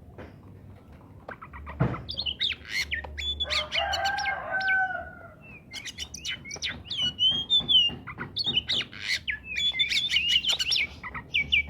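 Oriental magpie-robin singing a busy run of varied whistled notes, sweeps and chips, starting about two seconds in. A lower, drawn-out call sounds briefly in the middle.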